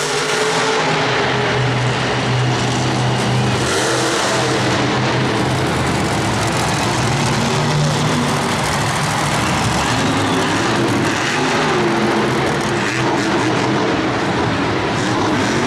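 Monster truck's supercharged V8 engine running and revving as the truck drives across the arena floor, its pitch rising and falling.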